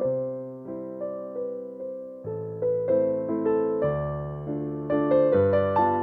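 Background music: a gentle piano or electric piano piece, with chords struck about once a second and each fading before the next.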